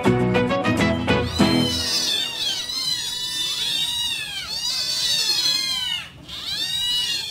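Music for about the first two seconds, then a group of kittens meowing at once: many high, overlapping meows, with a brief pause about six seconds in.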